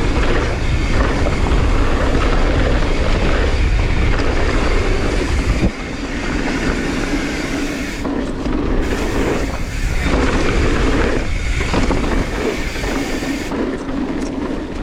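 Mountain bike riding over a dirt trail: wind rumbling on the rider-mounted microphone together with tyre roar and the bike's rattling. The low wind rumble drops off sharply about six seconds in, leaving the tyre and rattle noise.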